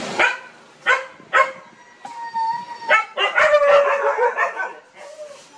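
Nursing puppies whimpering and yelping: a few short, sharp cries, then drawn-out high whines from about two seconds in, with a busier stretch of overlapping whining just after three seconds.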